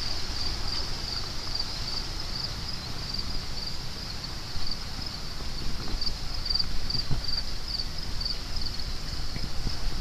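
Insects droning steadily with a high, pulsing chirr, over a low rumble of wind on the microphone.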